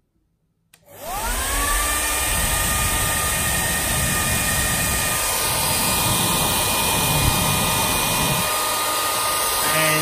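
Soocas H3S hair dryer switched on: its motor whine rises as it spins up about a second in, then it runs steadily with a strong rush of air.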